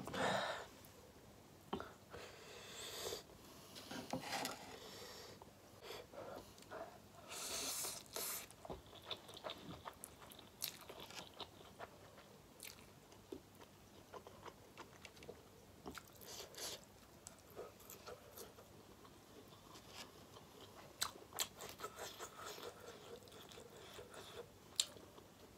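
A person chewing and biting into spicy ramen and sausages close to the microphone, with wet mouth clicks and crunchy bites. There is a sharp click right at the start.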